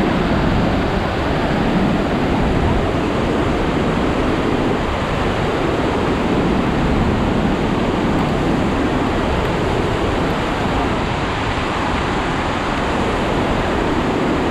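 Iguazu River rapids and waterfalls rushing in a loud, steady, unbroken wash of white noise.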